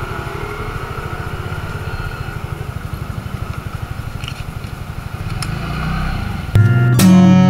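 A TVS Ntorq 125 scooter's single-cylinder engine idles with a steady low, pulsing throb while stopped. Near the end, louder acoustic guitar music cuts in suddenly.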